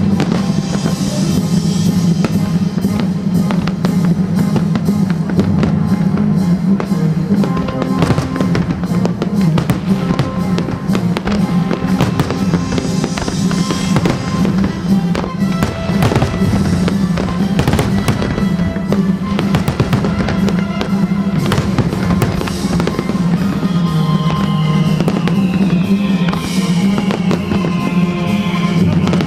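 Aerial fireworks shells bursting one after another in quick succession over loud, steady music. A few falling whistling tones come near the end.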